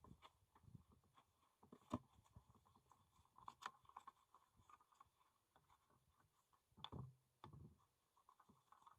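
Near silence with faint scattered clicks and soft knocks. A sharper knock comes about two seconds in and a low thud about seven seconds in.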